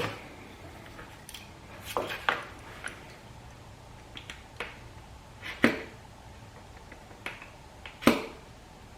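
Utility knife scoring a plastic door panel's inner skin: a series of sharp, irregular clicks and snaps as the blade catches and pops along the plastic, the loudest about halfway through and near the end.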